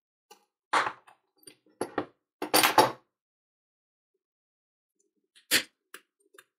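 Knocks and clinks of a steel two-jaw gear puller being handled and fitted onto an angle-grinder motor armature: a few knocks about a second in, the loudest cluster around two and a half to three seconds in, then a single knock about five and a half seconds in.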